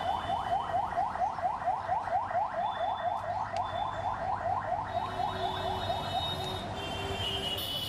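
An electronic alarm sounding: a fast warble of rising chirps, about five or six a second, that fades away about six seconds in.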